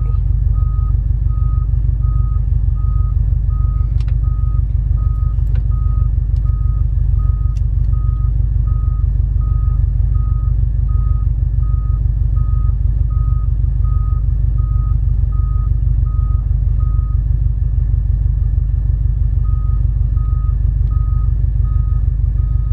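Volvo L90F wheel loader's diesel engine running with a steady low rumble while its reversing alarm beeps evenly, about two beeps a second. The beeping stops for a couple of seconds about three-quarters of the way through, then starts again.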